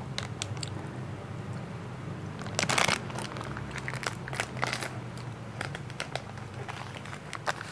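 Plastic ice-cream wrapper crinkling as it is pulled open by hand: a string of short crackles, the loudest about three seconds in.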